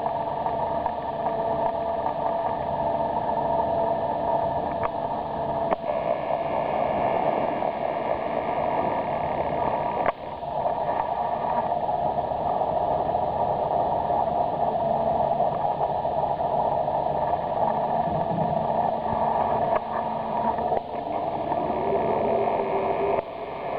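Steady machinery hum and noise with a few faint steady tones. It drops out briefly about ten seconds in and again near the end.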